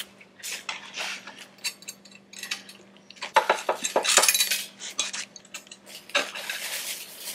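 Flat steel brackets clinking and tapping against the aluminium frame of an A/C condenser as they are handled and fitted on a steel workbench: a string of short metal taps, busiest about three seconds in, with a brief rustle near the end.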